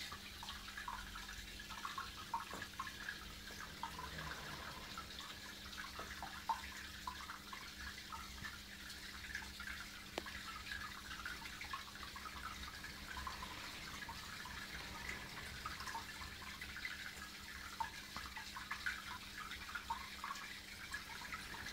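Aquarium water trickling and splashing steadily with small irregular drips and bubbles, over a low steady hum.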